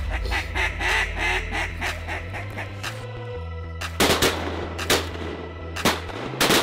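Rapid string of loud duck quacks, then a volley of about five shotgun shots from a couple of seconds after the quacking stops, over a low steady music bed.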